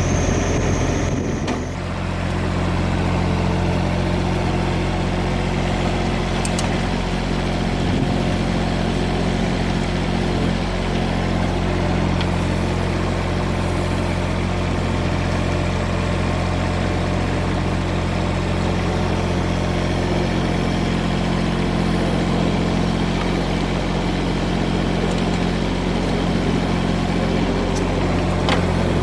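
Komatsu PC10-7 mini excavator's diesel engine running steadily at idle, settling to an even idle about a second and a half in.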